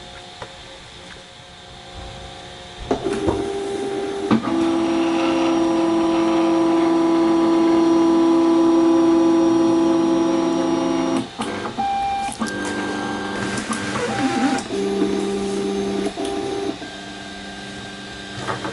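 3D printer stepper motors whining as the axes move. Steady tones hold one pitch for several seconds, then switch between different pitches in shorter moves, over a steady fan hiss.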